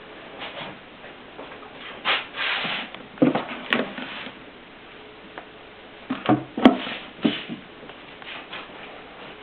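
Klein Adler portable typewriter being worked by hand: a few irregular mechanical clunks and clicks, with a short rasping slide about two seconds in, rather than steady typing.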